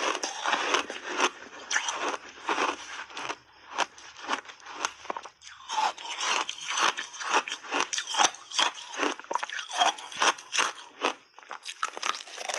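Snow-white block ice being bitten and chewed, a rapid run of sharp crunches with a brief lull a few seconds in.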